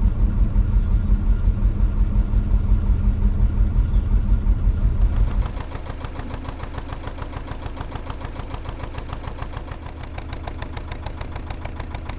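Narrowboat's inboard diesel engine chugging steadily as the boat cruises, a regular beat of about five thumps a second. About halfway through it drops to a quieter, thinner chug.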